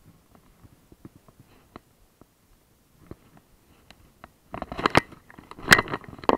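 Handling noise on a chest-worn action camera: light scattered clicks and rustles, then, about four and a half seconds in, louder scraping and knocking as a plastic bottle and clothing rub against the camera.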